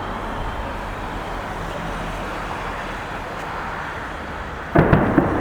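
Steady outdoor background hum, then near the end a sudden loud volley of salute bangs, several in quick succession.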